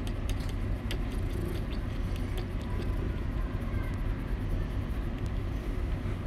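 Domestic cat purring while being stroked: a steady low rumble right at the microphone.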